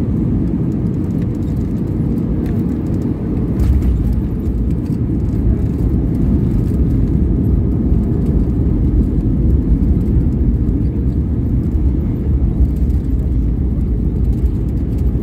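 Cabin noise inside an Airbus A320-214: a steady low rumble of its CFM56 engines and airflow, heard from a window seat. It grows a little louder about four seconds in, with a faint knock.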